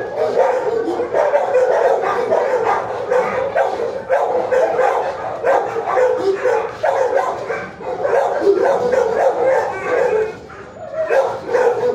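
Many shelter dogs barking and yelping at once, a dense, continuous chorus that eases briefly about ten seconds in.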